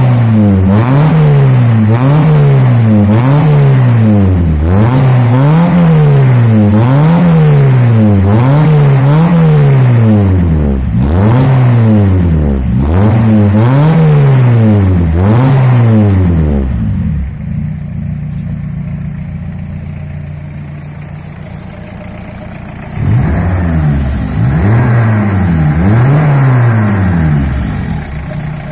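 Citroën Saxo 1.5 diesel four-cylinder engine heard through its exhaust, revved up and down over and over, about once a second. About two-thirds through it drops to a steady idle, then is revved a few more times near the end and settles back to idle.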